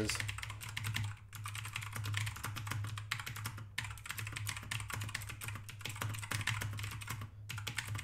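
Keychron K2 mechanical keyboard being typed on with both hands: rapid, continuous key clacking, broken by a few brief pauses.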